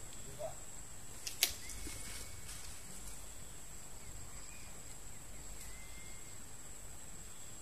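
A single sharp snap about a second and a half in, the shot of a spear gun fired at fish in the water. Under it runs a steady thin high whine with faint outdoor hiss.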